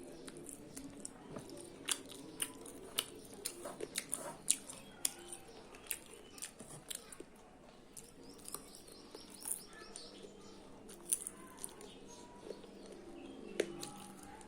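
Close-up chewing and eating sounds: irregular sharp mouth clicks, smacks and small crunches, coming in quick clusters at times.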